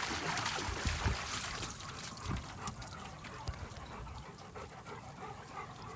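Wet dogs panting just out of the water, with water trickling and splashing around them and a few soft thuds in the first couple of seconds. The sound fades toward the end.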